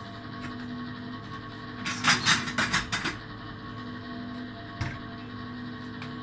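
Kitchen utensils clattering as they are rummaged through for about a second, starting about two seconds in, then a single knock a couple of seconds later, over a steady low hum.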